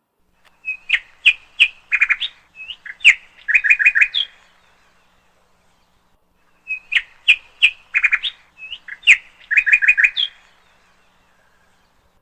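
A songbird singing the same short phrase twice, a few seconds apart. Each phrase is a string of sharp chirps and a quick run of notes ending in a rising flourish.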